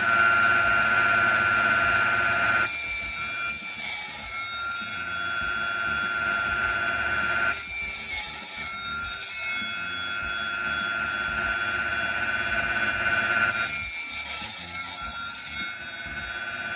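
Small benchtop table saw running with a steady high whine. Three times the blade cuts through thin plexiglass on a sled, each cut adding a harsher hiss for about two seconds, at roughly three, eight and fourteen seconds in.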